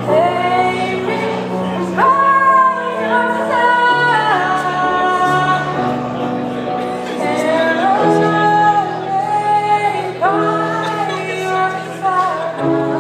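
A woman singing a slow ballad live, holding long notes that slide between pitches, over sustained chords from a Kawai digital piano that change every couple of seconds.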